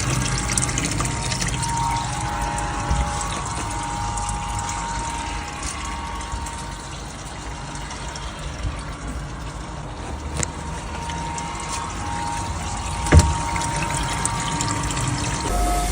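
Water running steadily with a steady mechanical whine that fades out and returns, and a single sharp knock about thirteen seconds in.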